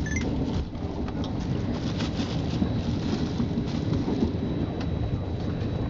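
Ferrovie Nord train in motion, heard from inside the carriage: a steady low rumble of the wheels on the track, with scattered faint clicks and a thin, steady high whine.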